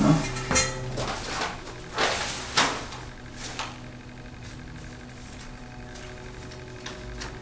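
Rustling and light clicking of paper and plastic hardware packaging being handled: a few short rustles and clicks in the first three seconds, then only a faint steady hum.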